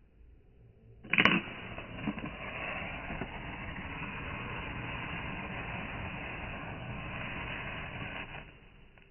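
A match struck with a sharp scrape about a second in, then a steady crackling hiss of burning match heads that stops abruptly about seven seconds later.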